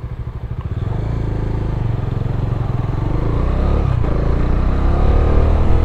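Single-cylinder motorcycle engine idling with a fast, even pulse, then pulling away from about a second in and accelerating, its pitch rising through the gears.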